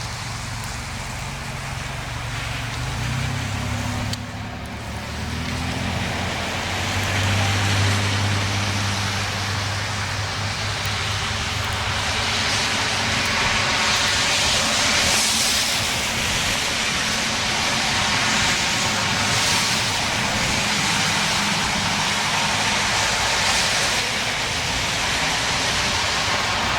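A vehicle running, with low engine tones that shift in steps and a steady noisy rush that swells in the middle.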